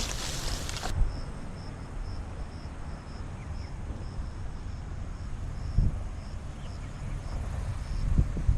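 An insect chirping high and repeatedly, about twice a second, over a low rumble of wind on the microphone, with a few dull thumps.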